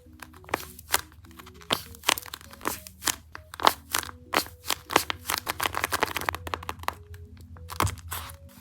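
Paper crinkling and crackling in sharp, irregular snaps, a few each second, as a paper squishy is scrunched and stuffed by hand, with a denser run of crackle about six seconds in. Soft background music plays underneath.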